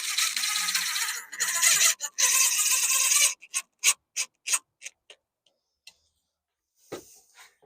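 A screw being driven by hand to fix a doorbell mounting plate: a loud gritty scraping for about three seconds, then a run of sharp ticks, about three a second, that fade out.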